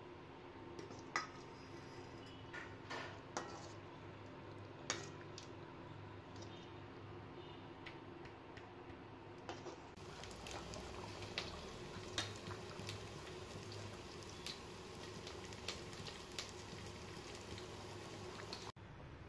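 A steel ladle stirring in a steel pan of curry, with a few sharp clinks against the metal. About halfway through it gives way to the coconut-milk curry simmering: a steady bubbling hiss with scattered small pops.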